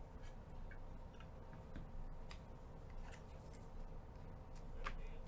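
Faint scattered clicks and rustles of foil trading-card packs being opened and cards handled, with a sharper click near the end, over a low steady hum.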